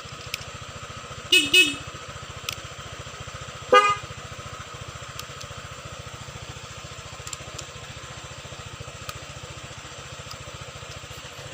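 Honda PCX scooter's single-cylinder engine idling steadily, with an aftermarket electronic siren giving two quick chirps about a second in and one short, louder horn-like blast near four seconds.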